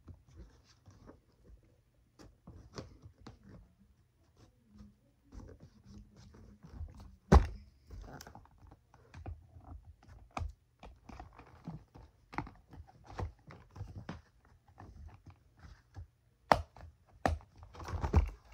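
Toy packaging being handled and opened: irregular clicks, crinkles and taps, with a sharp knock about seven seconds in and another about sixteen and a half seconds in.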